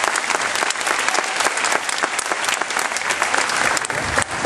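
Audience applauding with dense, steady clapping that thins out near the end.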